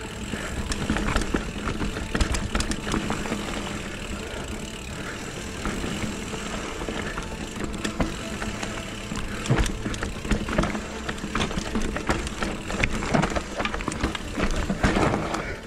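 Specialized Kenevo e-mountain bike descending a steep, rough forest trail: tyres rumbling over the dirt, and the frame and drivetrain rattling with frequent sharp knocks as it hits roots and rocks.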